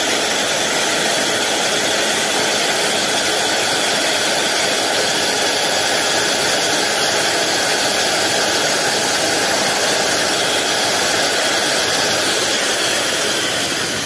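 Heated cloth drill machine running steadily as its drill is pressed down through a stack of fabric; near the end it is switched off and winds down.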